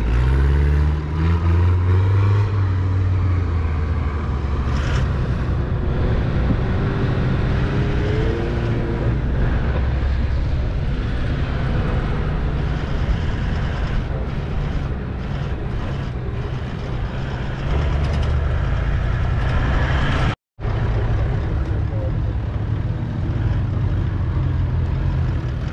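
Off-road 4x4's engine running under load at low speed on a rough dirt track, revving up near the start with a rising pitch, then holding a steady low rumble. The sound cuts out for an instant about twenty seconds in.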